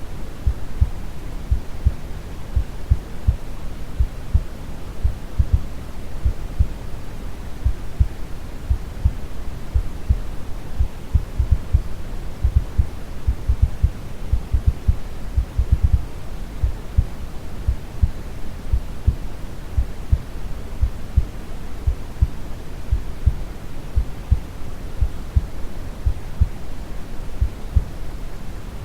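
Recorded heartbeat, a steady run of low thumps, over a continuous deep brown-noise rumble.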